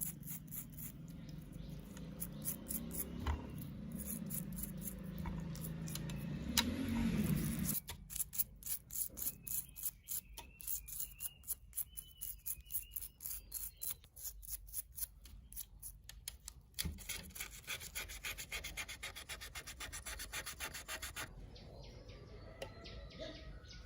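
Rapid rhythmic rubbing strokes, many a second, as a small part is scrubbed or sanded by hand during the restoration of an AirPods set. The strokes change in character a few times, about eight seconds in and again near the end.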